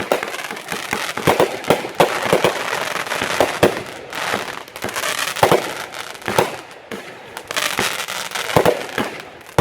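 Fireworks display: a rapid, irregular series of shell bursts and bangs over continuous crackling, the bangs coming several a second at their densest.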